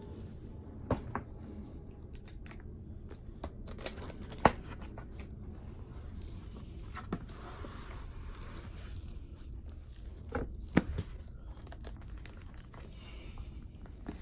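Laptop packaging being unwrapped by hand: scattered crinkling and rustling with a stretch of tearing around the middle, and a few sharp knocks, the loudest about a third of the way in.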